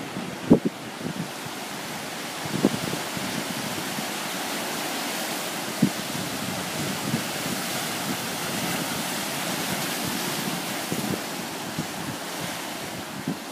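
Ocean surf washing in over rocks, a steady rush that swells a little through the middle and eases near the end, with a few short low thumps.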